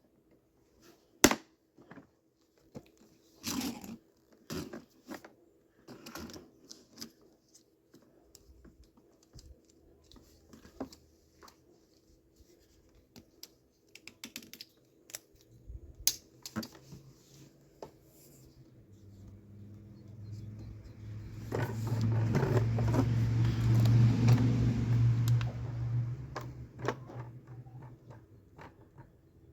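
Scattered plastic clicks and knocks from handling and fitting parts of a wet/dry vacuum, then, past the middle, several seconds of rushing noise with a low hum that swells and fades.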